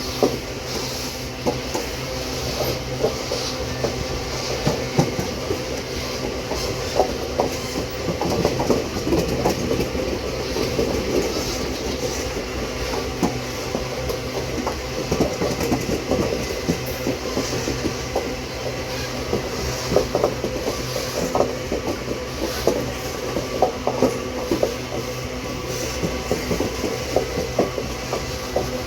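Loaded iron-ore train wagons rolling past: a continuous rumble with frequent irregular clicks and knocks of the wheels on the track.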